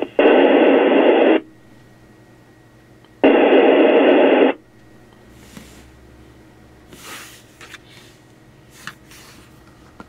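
Icom IC-7600 receiver on the 33.940 MHz low-band dispatch channel giving out two bursts of radio static, each about a second long, a few seconds apart. After that comes a low steady hum from the speaker with a few faint clicks.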